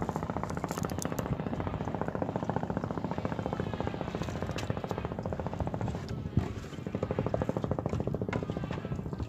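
A small engine running with a rapid, even putter. It dips briefly about six seconds in, where there is one sharp knock.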